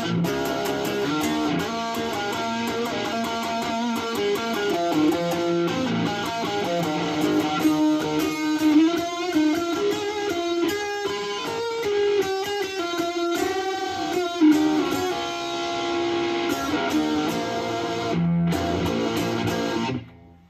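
Electric guitar played through a silver-label, Taiwan-made Boss DS-1 Distortion pedal, engaged, into a Vox amplifier: distorted riffs and single-note lines with ringing chords. The playing cuts off abruptly just before the end.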